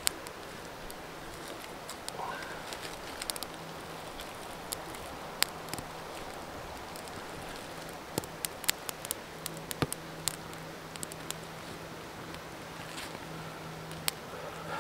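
Small kindling fire of dry twigs crackling, with scattered sharp snaps and the rustle of sticks being laid on by hand, over a steady hiss of running creek water.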